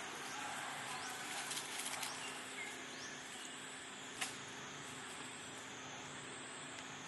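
Dry leaf litter rustling and crackling as macaques move about on it, mostly between one and two seconds in, with one sharp click about four seconds in. A steady high-pitched background drone runs underneath.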